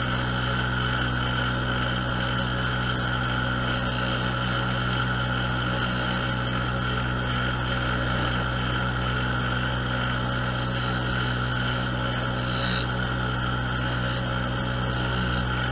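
Small wood lathe's electric motor running at a steady pitch while a skew chisel cuts into a small spinning wooden piece.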